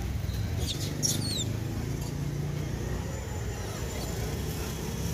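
Outdoor background with a steady low rumble and faint distant voices, broken by a couple of short, high, falling chirps about a second in.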